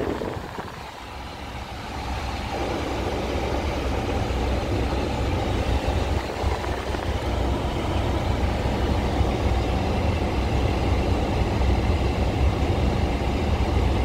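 Steady rush of air from a Chevrolet Camaro's air-conditioning blower, heard inside the cabin over the low, even hum of the idling engine. The rush grows louder about one to three seconds in, then holds steady. The air conditioning is running after a Freon recharge and repair.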